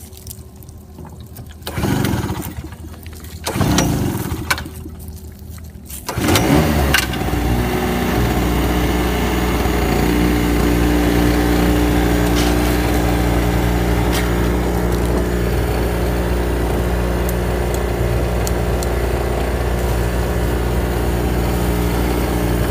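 Small portable gasoline generator being pull-started: two short bursts that don't catch, then it starts about six seconds in and runs steadily.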